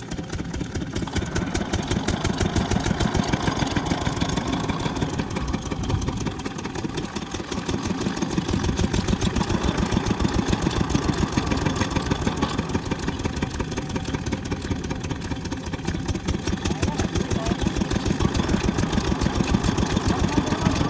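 Stationary single-cylinder diesel pumpset engine running steadily, a rapid even chugging, driving a belt-driven borewell water pump. The level sags slightly about six seconds in, then picks back up.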